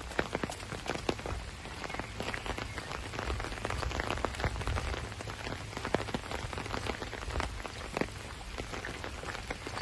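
Steady rain falling on wet asphalt and grass, with many sharp, close raindrop hits scattered through the hiss.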